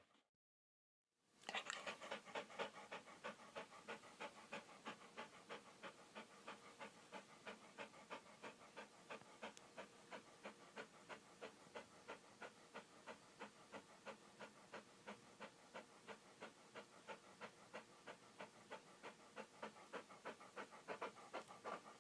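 Dog panting rapidly and evenly, about four breaths a second, starting after a brief silence about a second in.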